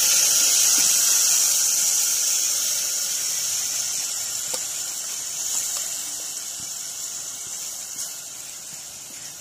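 Tomato and dried-chilli purée hitting hot oil and crushed garlic in a metal pan, sizzling with a loud, high hiss that slowly dies down as the purée settles into the oil.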